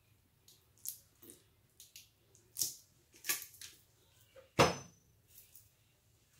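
Plastic squeeze bottle of barbecue sauce squirting and sputtering over ribs in short spurts, with one sharp knock about two-thirds of the way through.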